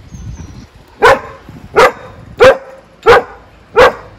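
A dog barking five times in a steady rhythm, about one bark every two-thirds of a second.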